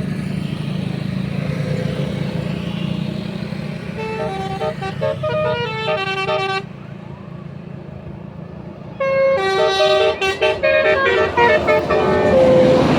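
A bus's multi-tone 'telolet' horn plays a quick melody of stepped notes for about two and a half seconds, over the low hum of the bus engine running. It stops, then plays again louder from about nine seconds in.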